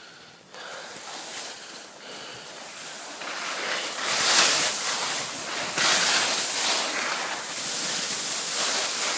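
Skis hissing over snow with wind rushing on the microphone as the filming skier moves downhill, growing louder from about three seconds in, with a few surges.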